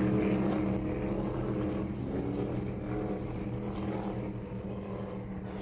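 A motorboat's engine running at speed: a steady drone that slowly fades away.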